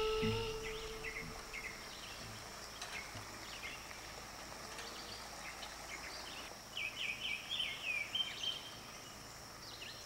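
Northern mockingbird singing scattered chirps, then a quick run of about six repeated notes past the middle, over a steady high-pitched drone of insects.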